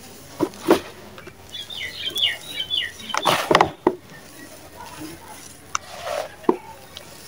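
Dry, gritty sand-cement powder crumbled and squeezed by hand in a plastic basin: uneven crunches and grains pattering onto the basin, with the loudest burst a little after three seconds.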